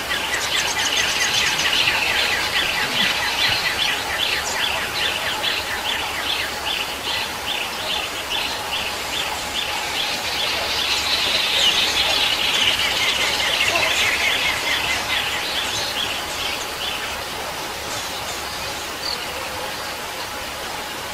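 Birds chirping in fast, continuous runs of quick repeated notes over a steady background hiss.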